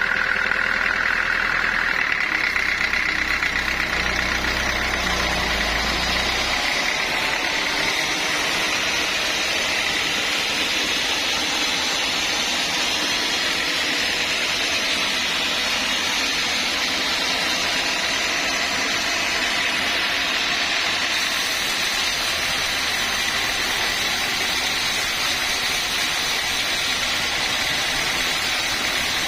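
Sawmill saw running steadily while sawing a mahogany log, with a continuous mechanical whine; a low hum underneath drops away about six seconds in.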